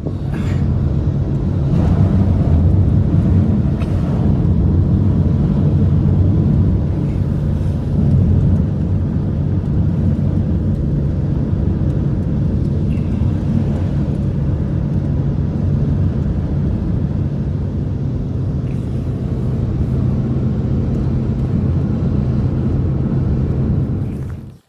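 An engine running steadily at a constant speed, a loud low drone that cuts in and out abruptly.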